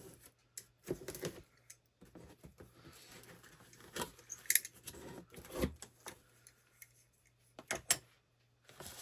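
Cardboard box being handled and opened: scattered clicks, knocks and light scraping of the flaps and contents, with a few sharper knocks about four and five and a half seconds in and two near the end.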